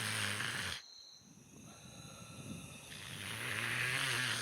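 A man snoring, a racket: one snore ends about a second in, then another builds slowly and is loudest near the end. Crickets chirp faintly in the background.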